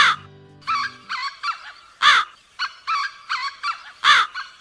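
Crow cawing: three loud caws about two seconds apart, with quicker, softer calls in between.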